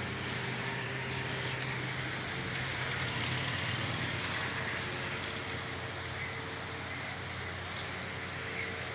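A grain-processing machine running steadily, with a constant low hum and a broad whirring rush.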